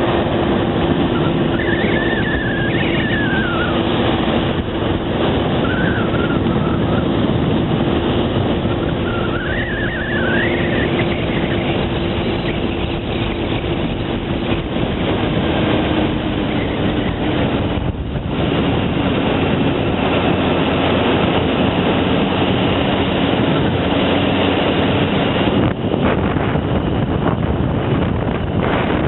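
Motorcycle running at a steady cruise, its engine tone mixed with heavy wind and road noise on the microphone. The engine note steps down slightly around the middle, with a brief dip in level.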